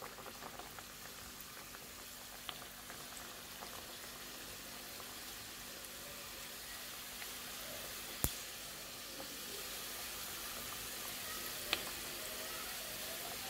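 Small squares of sesame dough deep-frying in hot oil: a steady sizzle that grows a little louder as more pieces go into the pan. Two sharp clicks about 8 and 12 seconds in.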